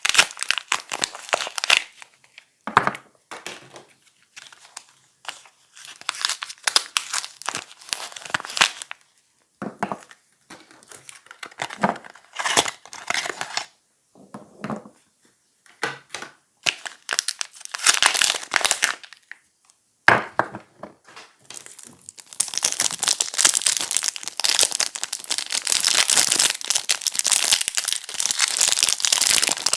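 Packaging being unwrapped from bars of soap: crinkling and tearing in irregular bursts with short pauses, turning into continuous crinkling for the last several seconds.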